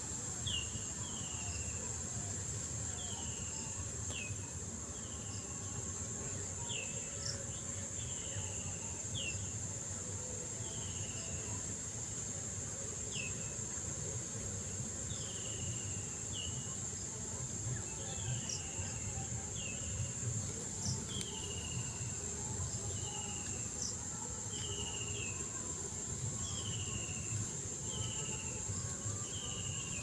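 Insects drone steadily in one continuous high tone, with a short falling call repeated about once a second over it. A low rumble runs underneath.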